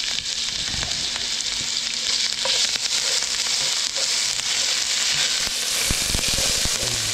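Chopped Scotch bonnet pepper, garlic and thyme sizzling in hot oil in a pot, with a steady frying hiss. A spatula stirs them around the pot, giving small scrapes and knocks.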